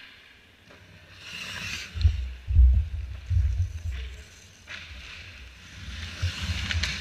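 Hockey skate blades scraping on the ice right at the goal, with uneven low thumps and rumbles from the goalie's gear knocking the net that the camera is mounted on; the loudest thumps come about two to three and a half seconds in.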